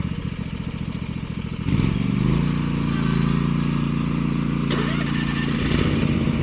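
Riding lawn mower engine running, then revving up sharply about two seconds in and holding at a steady higher speed.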